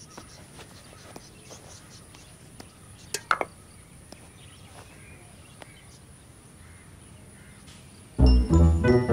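Quiet outdoor ambience with faint scattered insect and bird ticks, broken by one sharp knock about three seconds in. About a second before the end, loud brass music comes in.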